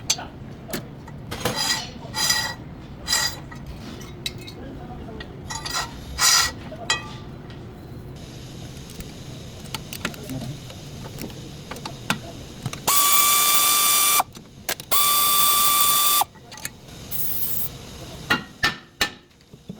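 Brake work on a car: a few short mechanical bursts from tools, then a power tool running twice with a steady whine for about a second each time, followed by a few clicks.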